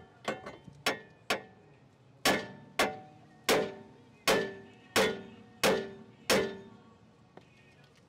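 Hammer blows on a rusty steel steering knuckle, metal on metal, each strike ringing briefly. Three quick strikes in the first second and a half, then after a short pause seven more at an even pace of about one every two-thirds of a second, stopping a little after six seconds in.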